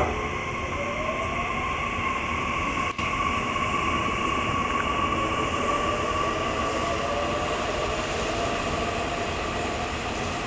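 Nishitetsu electric train running, with a steady high whine over rail noise and a faint motor tone rising slowly in pitch.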